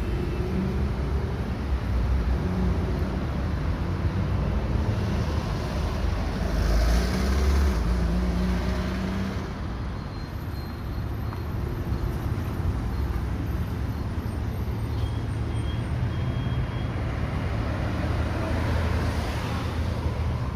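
Road traffic at an intersection: engines of cars and buses running with tyre noise, one vehicle passing close about a third of the way in and another near the end.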